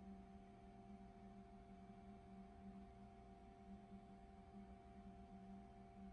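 Near silence with a faint, steady hum of several tones from a Haas ST-15Y CNC lathe as its spindle turns the finished part slowly.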